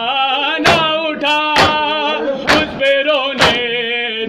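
A male voice chanting a nauha, a Shia lament, in long, wavering sung lines, kept in time by sharp hand strikes on the chest (matam) about once a second.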